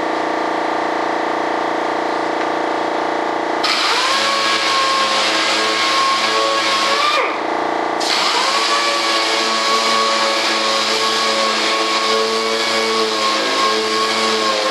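A small power tool motor switched on twice: it spins up with a rising whine, runs steadily with a hiss for about three seconds, spins down, then starts again and runs steadily for about six seconds. A steady lower machine hum runs underneath.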